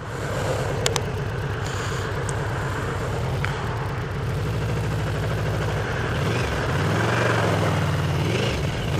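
Yamaha VMAX V4 engine running steadily under way, a low even drone. From about six seconds in its pitch swings up and down as the throttle changes. A couple of faint clicks come about a second in.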